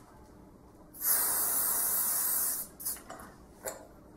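Aerosol hairspray can sprayed in one steady hiss of about a second and a half, starting about a second in, followed by a few short, fainter sounds.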